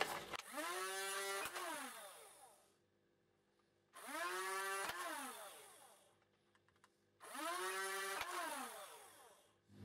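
Dart Zone Thunderbolt flywheel blaster fired three times. Each time the battery-driven flywheels spin up with a rising whine, a sharp click comes as a dart is pushed through, and the whine falls away as the flywheels spin down.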